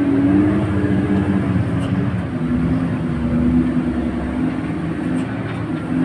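Tour bus engine and road noise heard from inside the passenger cabin while the bus drives, a steady hum that dips slightly in pitch about two seconds in.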